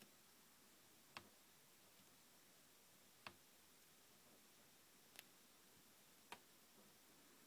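Four sharp, short clicks over near silence from a follow focus driving a Lanparte lens gear ring on an SLR Magic Hyperprime 12mm lens as the focus is turned, spaced one to two seconds apart.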